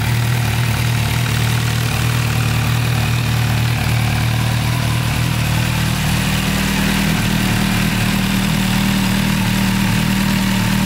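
MV Agusta Brutale motorcycle engine idling steadily, its main tone shifting a little higher about halfway through.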